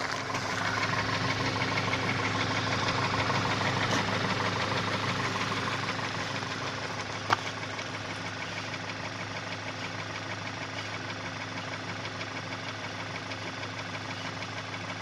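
Engine running with a fast, rhythmic ticking knock laid over its note: an extraneous noise from the engine. It runs a little louder for the first few seconds, then settles to a steady idle, with one sharp click about seven seconds in.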